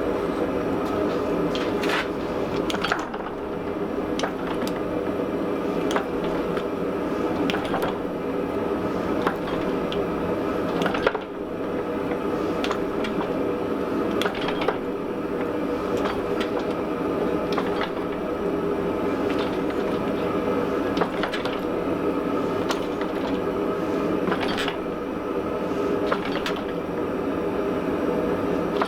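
A forge running with a steady mechanical drone, with light sharp clicks or pops every second or two.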